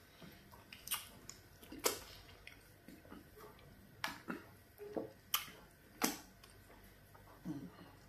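Wet eating sounds from fufu eaten by hand with garden egg soup: short lip smacks and finger clicks at the mouth while chewing, a sharp smack every second or so.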